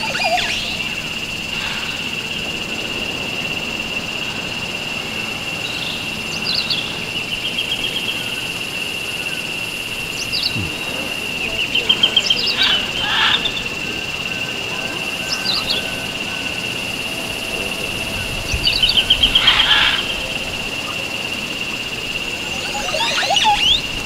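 Birds calling in short bursts of chirps and quick trills every few seconds, loudest about halfway through and again near the end, over a steady high-pitched hum.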